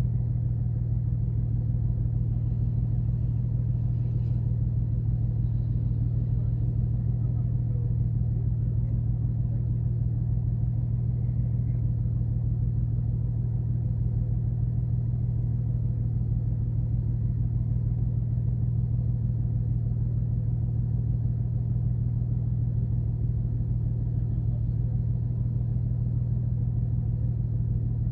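A car engine running at a steady speed, a low, constant drone that neither rises nor falls.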